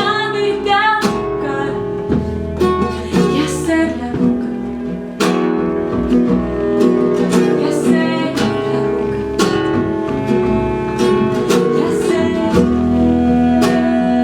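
Live acoustic ensemble music: plucked acoustic guitar over sustained low notes. A sung vocal line with vibrato ends about a second in, and the rest is instrumental.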